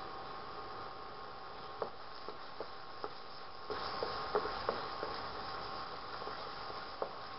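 Wooden spatula stirring a frying tomato masala in a pan, knocking against the pan about ten times at irregular intervals, most of them in the middle of the stretch, over a steady sizzle and a steady hum.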